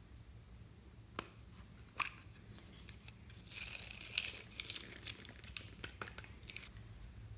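Two sharp clicks as a plastic case is opened, then about three seconds of dense crackling rattle as small plastic beads are tipped out of it onto slime.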